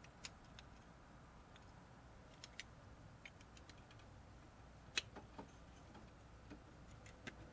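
Faint, scattered small clicks of a metal spade terminal and a small screwdriver worked against a plastic automotive relay as the terminal is pried and pulled out, the sharpest click about five seconds in.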